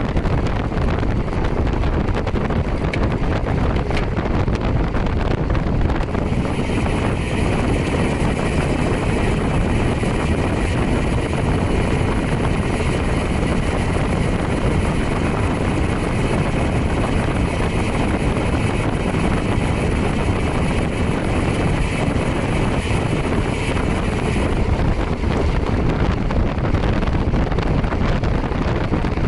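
Wind rushing over the microphone while riding at speed, a dense steady roar. A brighter hiss joins in from about six seconds in and drops away again about five seconds before the end.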